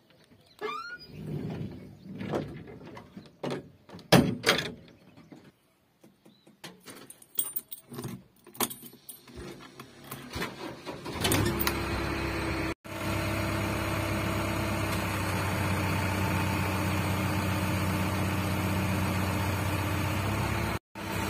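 Clicks and keys jangling in the cab of a JCB backhoe loader as the ignition key is put in and turned. About eleven seconds in, the diesel engine starts and settles into a steady idle, broken twice by brief gaps.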